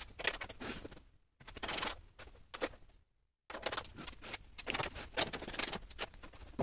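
Light metallic clicks, rattles and scrapes as a workbench clamp's metal T-handle is handled and turned to hold the slab down, in short irregular bursts.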